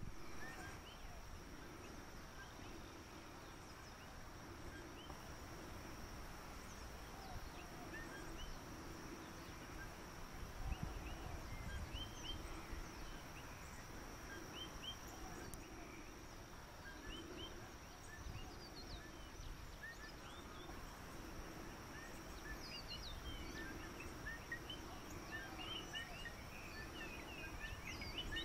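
Quiet rural field ambience: scattered short bird chirps over a steady high-pitched insect drone, with low wind rumble on the microphone.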